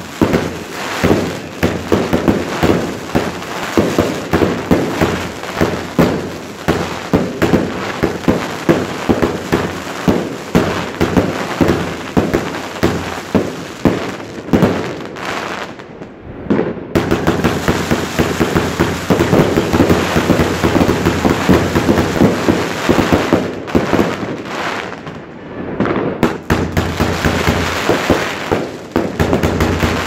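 Wolff Jackhammer firework going off in a rapid, unbroken run of cracks and pops, like crackling stars. The noise dips briefly about halfway through and again a few seconds before the end, then picks up again.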